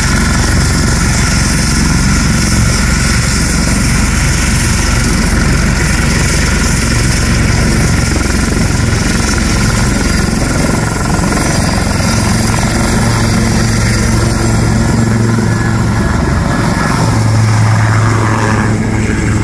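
Westland Lynx AH7 helicopter's twin Rolls-Royce Gem turboshafts and main rotor running loud and steady, with a high turbine whine, as it lifts off from the grass and hovers low. A low rotor beat grows stronger over the last couple of seconds.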